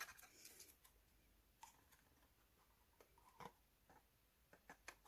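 Near silence, with faint scattered clicks and light rustles of cardstock being handled, a few more of them near the end.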